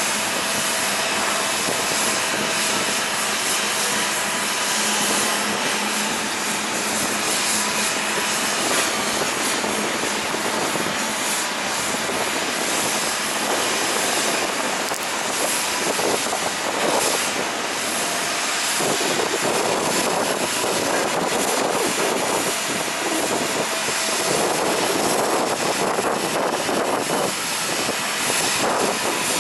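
Jet airliner engines running on the airport apron: a steady, even rush of engine noise with faint whining tones and no distinct events.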